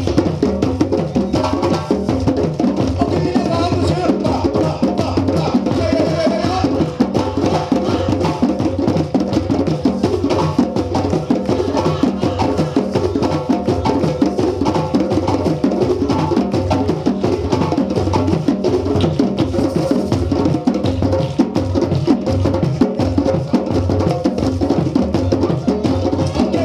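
Live West African djembe drum ensemble playing a fast, steady Malinke rhythm, with sharp slaps and deep bass strokes.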